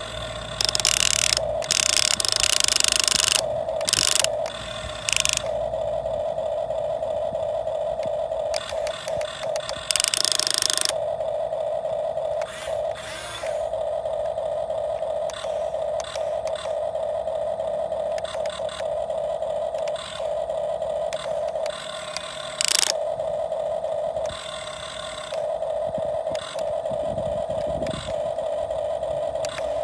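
Radio-controlled model excavator's small electric motors and gearboxes whirring in a steady buzz that stops and starts several times as the controls are worked. Louder, harsher rattling or scraping comes in now and then, most strongly in the first few seconds and again about ten seconds in.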